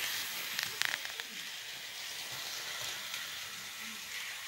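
HO scale model locomotive running on its track: a steady, hiss-like whir of motor and wheels, with a few sharp clicks about a second in.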